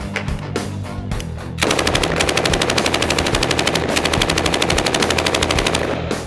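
A long continuous burst of automatic gunfire, rapid evenly spaced shots, starts about a second and a half in and stops near the end. Music plays underneath throughout.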